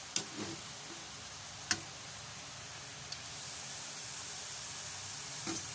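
Dry pancit bato noodles and chicken being stirred in a hot pan, with a faint steady sizzle. A few sharp clicks and knocks of the utensil against the pan, two loud ones in the first two seconds and a softer one near the end.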